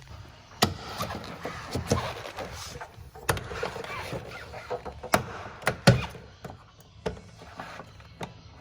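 Plastic retaining clips of a 2021 Honda Civic door panel snapping loose one after another as the panel is pried and pulled off the door: a series of sharp pops and clicks, the loudest about six seconds in, with scraping and rustling of the panel between them.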